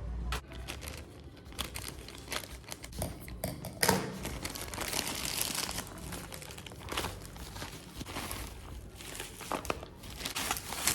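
Parcel packaging being torn open and crinkled by hand, an irregular run of rustling and ripping with a sharp rip just before four seconds in.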